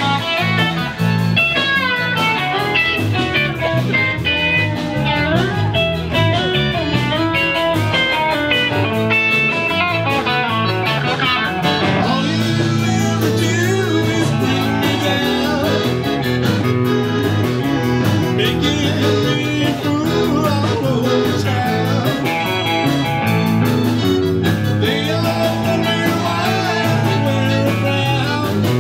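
Background music: a blues-style track with electric guitar and singing.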